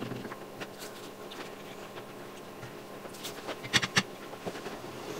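Chewing and mouth noises of people eating chicken nuggets fast, with small scattered clicks and light handling of cardboard nugget boxes and sauce pots. A few sharper clicks come between three and four seconds in.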